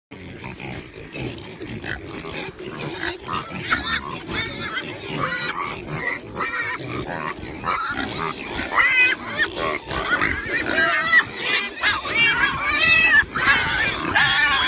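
Pigs squealing and grunting: many short, wavering high-pitched squeals over low grunts, coming thicker and louder in the second half.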